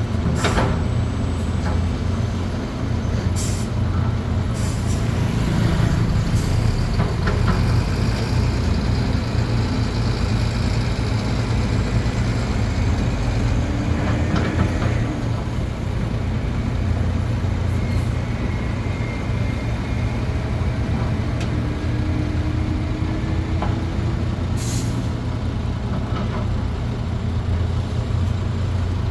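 Heavy diesel earth-moving machinery at work, large excavators and dump trucks: a loud, steady low engine drone with a few brief sharp noises over it and faint rising engine tones now and then.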